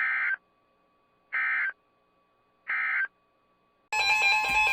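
Emergency Alert System SAME header: three short bursts of modem-like data tones, about a second and a half apart, marking the start of a new alert. Near the end the loud, steady two-tone EAS attention signal begins.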